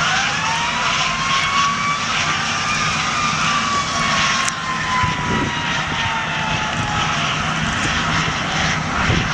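Steady engine drone with rushing wind and water noise, as heard from a boat under way. Over it a tone glides up in the first second, then sinks slowly and fades out about seven seconds in, with a single sharp click near the middle.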